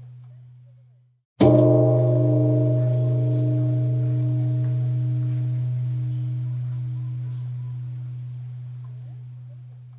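Temple bell struck once about a second and a half in, just after the previous stroke's ring dies away. It rings with a deep steady hum under several higher tones and fades slowly over the following eight seconds or so.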